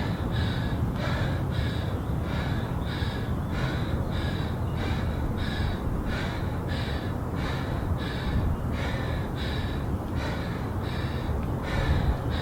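A woman breathing hard and fast from exertion, quick rhythmic gasps in and out about twice a second, over a steady low rumble.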